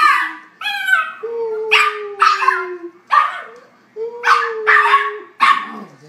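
A small puppy barking in a quick string of high-pitched yips, about seven in six seconds. Under several of the yips runs a long, slowly falling tone.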